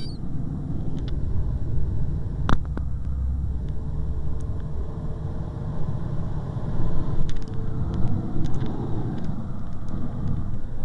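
Steady low rumble of airflow and wind noise in a glider's cockpit in flight, with a few light clicks and one sharper click about two and a half seconds in.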